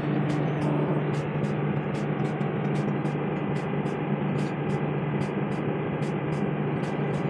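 Excavator's diesel engine running steadily at idle, a constant low hum, heard from the machine's cab, with faint irregular ticks over it.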